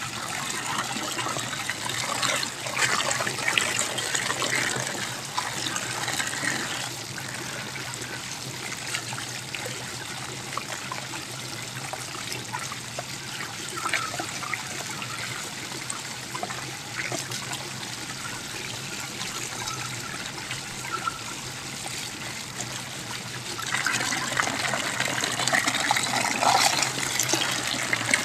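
A stream of water pouring into a basin of water while hands swish and lift bunches of papaya flowers and takokak greens in it, splashing. The pouring and splashing grow louder a couple of seconds in and again near the end.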